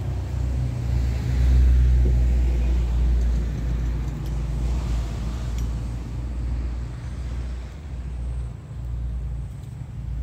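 Low rumble of a motor vehicle's engine, loudest about two seconds in and then fading.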